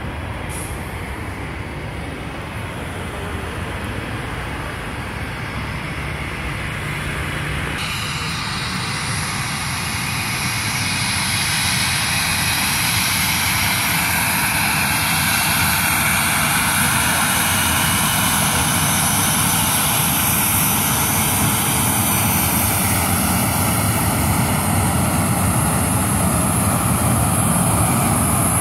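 Boeing 737-800's CFM56-7B jet engines running with a high whine that grows steadily louder for most of the clip. The first seconds hold quieter, more distant engine hum.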